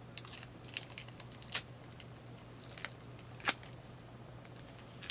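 Thin clear plastic film crinkling as it is peeled off a small ring light, with a few sharper crackles, the loudest about a second and a half and three and a half seconds in.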